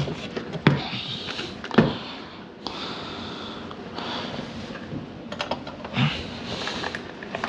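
Handling noises from hand tools and small parts on a vacuum power nozzle's motor and gear: a few sharp clicks and knocks, with a soft steady hiss through the second half.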